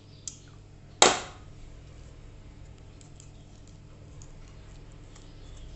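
Chopsticks stirring flour and warm water in a glass bowl, with faint scraping and light clicking. About a second in there is one sharp knock.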